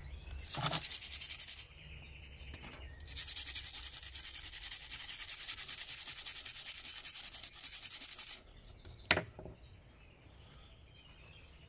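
Hand scrub brush rubbing the rust off a soaked sickle blade in fast back-and-forth strokes: a short bout, then a longer one of about five seconds. A single sharp knock follows near the end.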